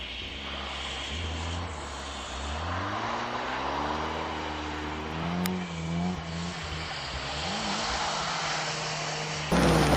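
Car engine revving as the car slides sideways through a cone course on snow, its pitch climbing and falling with the throttle. Near the end the sound jumps abruptly louder.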